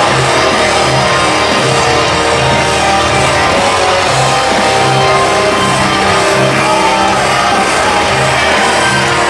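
Loud rock entrance music with electric guitar and a steady bass beat about twice a second.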